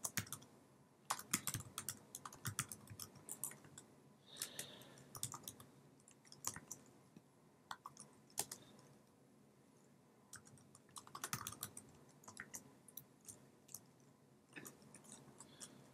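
Computer keyboard typing: faint keystrokes in short, irregular runs with pauses between them, including a longer break around the middle.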